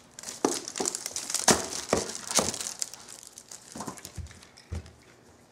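Thin paper sheets rustling and crinkling as they are handled and folded, with several sharp crinkles in the first two and a half seconds, then quieter.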